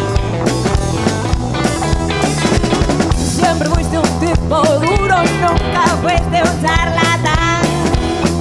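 A band playing a boogie: a drum kit keeps a steady beat under electric guitars, and a woman sings a melody from about three seconds in.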